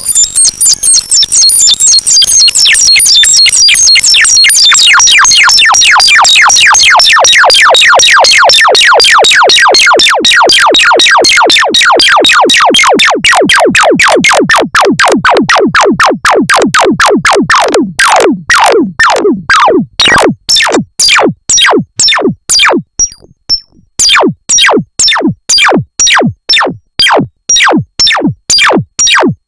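Arturia MicroBrute analog synthesizer playing a fast sequence of short notes, each a quick downward pitch sweep. At first the sweeps stay high; as it goes on they reach lower, and from about two-thirds of the way in the notes come apart with short gaps between them.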